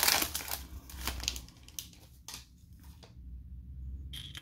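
Foil trading-card pack wrapper crinkling and tearing as it is pulled open and a thick card is slid out. The rustle is loudest in the first second or so, then dies down to faint handling of the card.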